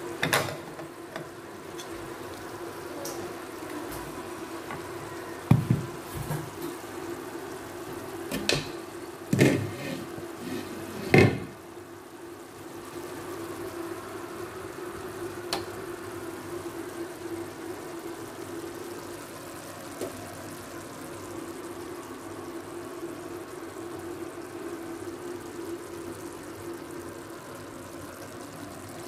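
A few sharp knocks of a black steel skillet on a gas stove's cast-iron grate, clustered between about a fifth and two fifths of the way in, the last one loudest. Under them is a steady hum with a low hiss.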